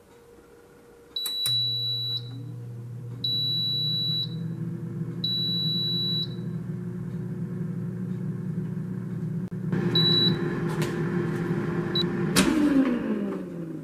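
Instant Vortex Plus air fryer starting up: three long high beeps, each about a second, while its fan motor starts with a steady low hum. Near the end a short beep, then a sharp loud click as the basket drawer is pulled out, and the fan winds down with falling pitch.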